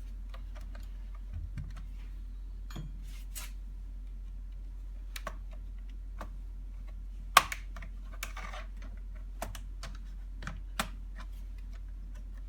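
Scattered light clicks and short scrapes of small parts and tools being handled on a laptop during disassembly, with one sharper click about seven seconds in, over a steady low hum.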